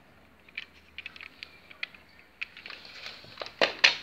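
Handling noise: scattered small clicks and taps from fingers on the camera and a small die-cast model car, growing into louder rustling with two sharp knocks near the end as the camera is moved.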